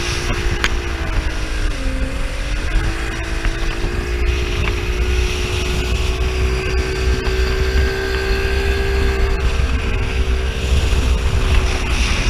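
Speedboat engine running at speed, with the engine note dipping briefly about two seconds in and then holding steady, over water and wind rumble on the microphone.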